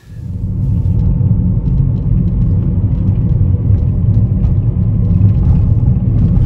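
Car driving along a street, heard from inside the cabin: a steady low rumble of engine and road noise.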